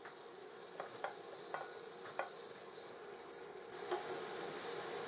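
Quiet sizzle of food frying in a saucepan, with a few light knocks against the pan. About three and a half seconds in, the hiss gets louder and stays up.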